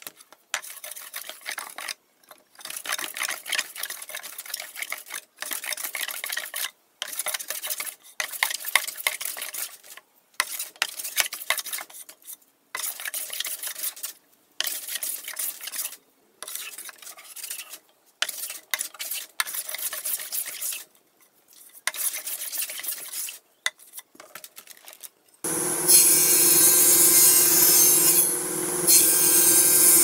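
Hand plane shaving a walnut board: about a dozen strokes, each a second or two long, with short pauses between them. Near the end a table saw runs at a loud, steady pitch.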